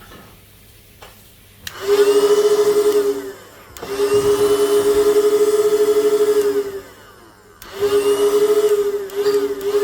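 Homemade PVC pipe steam whistle blown in three blasts, a short one, a longer one of about three seconds, and a third that wavers briefly near its end. Each blast sounds several notes together as a chord.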